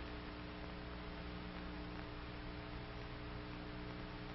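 Steady background hum with hiss from an old film soundtrack, with no other sound in it.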